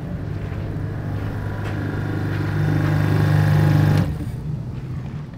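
Electric pressure washer's motor and pump running with a steady hum that grows louder, then cuts off suddenly about four seconds in.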